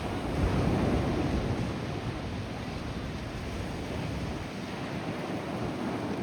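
Ocean surf breaking and washing in, a steady rush of water that swells louder about half a second in and then eases back.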